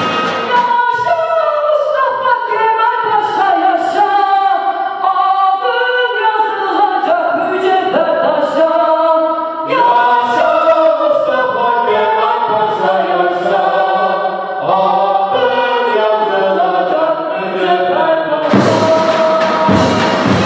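Woman singing a Turkish art-music melody into a microphone, accompanied by a mehter band with light percussion. About 18.5 s in the full mehter band comes in loudly with drums.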